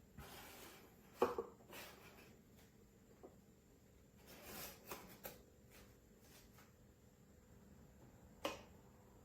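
Scattered light knocks and clicks of objects being handled, a sharp one about a second in and another near the end, over faint room tone.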